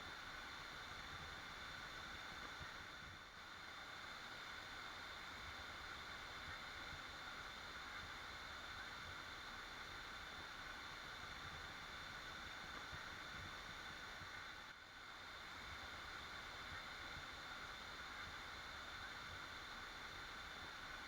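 A waterfall's water rushing in a steady, even hiss, dipping slightly in level twice.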